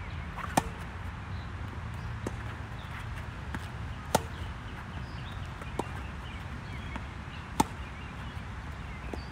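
Tennis ball struck by rackets during a doubles rally: four sharp pops spaced a second or two apart, the loudest about half a second in and about seven and a half seconds in. A steady low rumble underneath.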